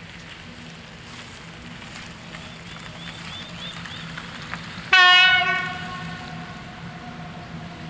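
A level-crossing warning bell ringing over and over, then about five seconds in a train horn sounds one short, loud blast that slides slightly down in pitch and fades away.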